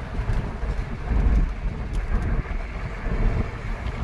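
Hindustan Contessa 1.8 saloon cruising at highway speed: steady wind rush and low road and engine rumble, with gusty wind buffeting the microphone.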